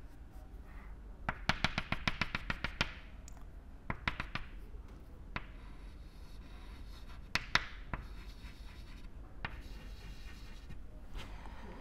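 Chalk tapping and scratching on a blackboard as lattice points and dashed lines are drawn, in several short bursts of rapid clicks separated by pauses.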